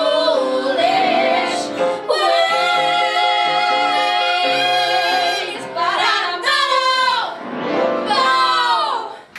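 Female voices singing a show tune with piano accompaniment, holding long notes with vibrato and breaking briefly between phrases.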